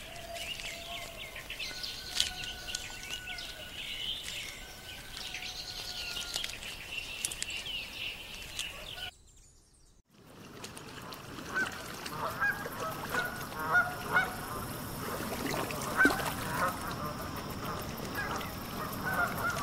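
Birds chirping in the background with two faint held hums, then, after a short gap, black swans giving short honking calls again and again.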